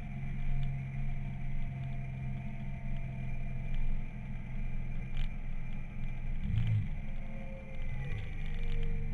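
Motorcycle engine running steadily while riding, under rushing wind noise on the camera's microphone. The engine note shifts briefly about two thirds of the way through.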